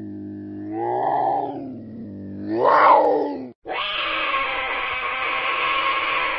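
Animal calls: two drawn-out pitched calls that rise and fall, the second louder. After a sudden cut, a long, rough, hoarse call follows.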